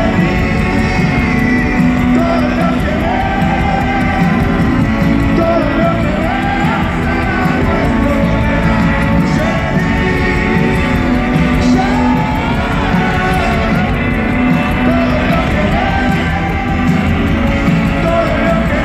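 A rock band playing live through a PA, heard from within the crowd: electric bass, guitars and drums, with a male voice singing over them. The music runs loud and steady without a break.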